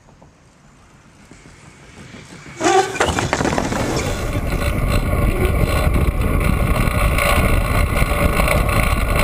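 Loud wind rush buffeting the microphone of a camera mounted on a track bike riding at speed, starting abruptly about two and a half seconds in after faint outdoor background.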